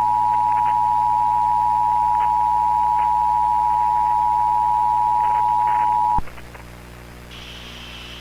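Emergency Alert System attention signal: a loud, steady two-tone beep held for about six seconds, which cuts off abruptly. A low mains hum and hiss follow.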